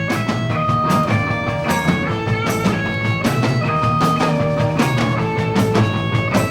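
A rock band playing live in rehearsal: an instrumental passage led by guitar over a steady beat, with no singing.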